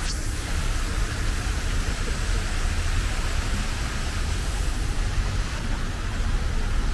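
Steady hiss of water running in a thin sheet over the stone paving of the Fontana Ara Pacis, over a low rumble; the hiss thins out about five seconds in.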